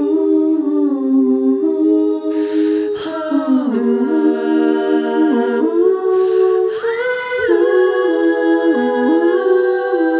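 Unaccompanied stacked vocal harmonies, one singer's voice overdubbed into several parts, singing wordless sustained chords that move in steps from one chord to the next.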